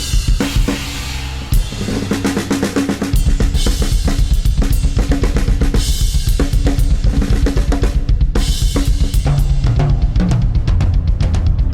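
Improvised music led by a drum kit: fast, busy strikes on drums and cymbals over low shifting bass notes.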